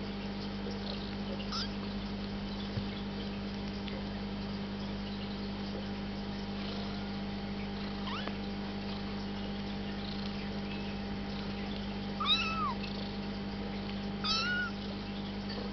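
Newborn kittens mewing: two short, high-pitched mews about two seconds apart near the end, and a fainter squeak earlier, over a steady low hum.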